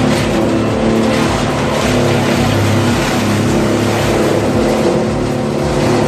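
Heavy machine's engine running steadily and loudly, with a rough noisy haze over its hum.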